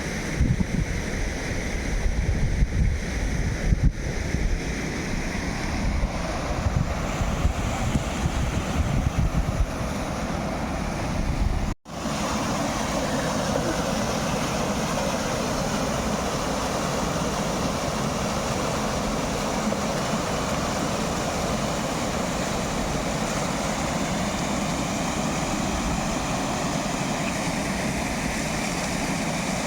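Wind buffeting the microphone over a steady rush of water. About twelve seconds in the sound cuts off for an instant, then a steady, even rushing noise carries on.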